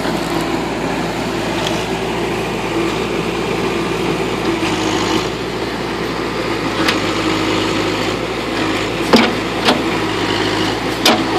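Backhoe's diesel engine running steadily as it works at digging out a stump, with a sharp knock about nine seconds in and another near the end.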